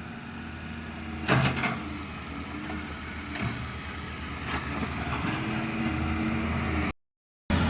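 Heavy vehicle engine running steadily, with a brief clatter about a second in; the sound cuts out abruptly near the end.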